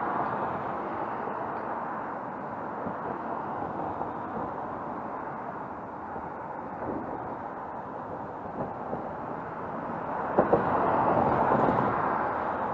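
Road traffic recorded on an action camera's built-in microphone: cars passing on the road with a steady hiss of tyres and engines. The sound swells about ten seconds in as a pair of cars passes close by.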